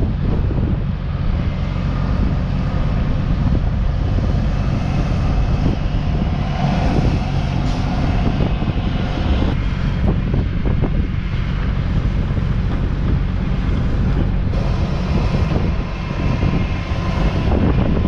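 John Deere combine running close by, unloading wheat from its auger into a grain trailer: a loud, steady engine drone with the rush of the machinery over it.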